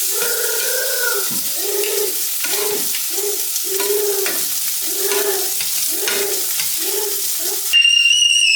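Food frying and sizzling in a pan, a steady hiss, with a run of short, evenly repeated pitched notes over it. Near the end a loud, steady high tone sounds for about a second.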